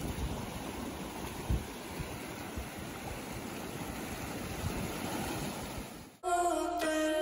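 Fast-flowing mountain stream rushing steadily over its bed, with uneven low rumbles underneath. A little after six seconds it cuts off abruptly and instrumental music with long held tones begins.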